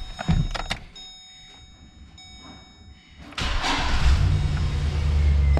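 A few knocks and clicks, then a pickup truck's engine cranks and catches about three and a half seconds in and settles into a steady idle. This is the first start after a fresh oil change, with the filter pre-filled and the oil pressure still coming up.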